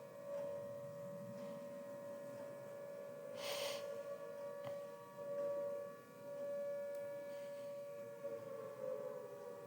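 Air-raid siren wailing, holding a steady high pitch made of two close notes that waver slightly, the lower note sagging a little near the end. A brief hiss comes about three and a half seconds in.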